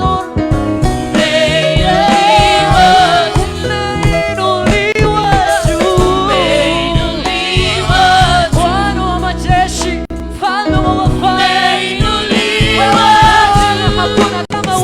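Gospel worship music: voices singing a praise song over instrumental backing.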